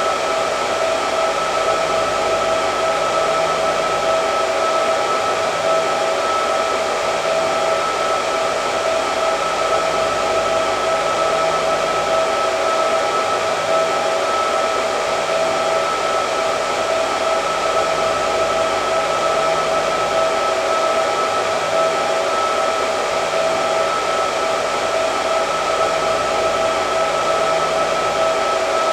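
Hair dryer running continuously: a steady rush of air with a constant motor whine, unchanging throughout.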